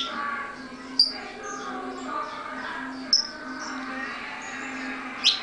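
Saffron finch (canário-da-terra) calling: four sharp, high chirps spaced one to two seconds apart, with softer high notes between them.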